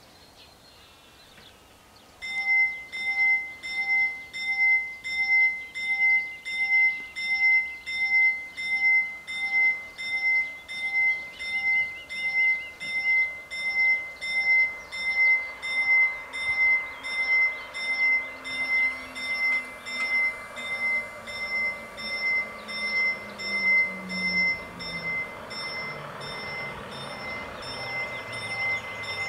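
Level-crossing warning bells start about two seconds in and ring in an even rhythm of about three strokes every two seconds. In the second half a rumble of an approaching vehicle builds beneath them, with a low engine note falling in pitch near the end.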